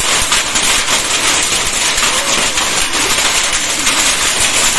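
Heavy downpour mixed with hail falling on a concrete yard: a loud, steady hiss of rain with dense, fine ticking of hailstones striking the ground.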